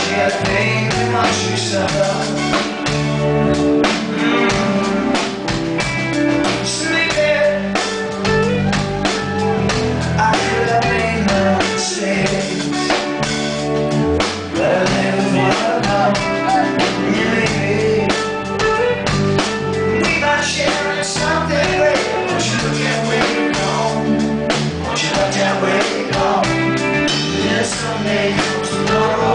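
Rock band playing live: a man singing lead vocals over electric guitar and a drum kit.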